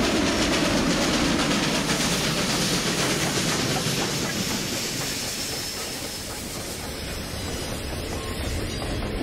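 Western Maryland 734, a 2-8-0 steam locomotive, hauling a freight train past, followed by its hopper cars rolling by on the rails.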